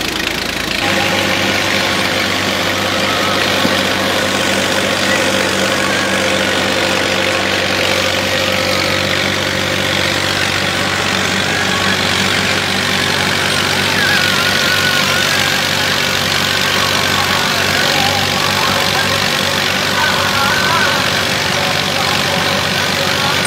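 Massey Ferguson 240 tractor's three-cylinder diesel engine running steadily under load as it drives a clay brick-making machine off its raised rear wheel, mixed with the machine's working noise.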